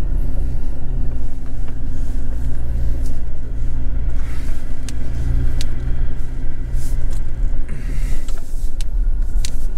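A vehicle driving on a gravel dirt road: a steady low engine and tyre rumble, with a few brief sharp clicks from bumps in the road.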